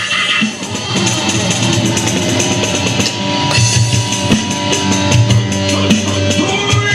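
Live rock band playing an instrumental passage, electric guitar over a drum kit, with no singing.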